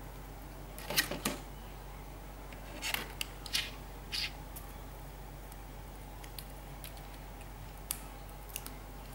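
Scattered sharp clicks and light rattles of a replacement laptop keyboard with a metal backing plate being handled, bunched in the first half with a couple more near the end, over a steady low hum.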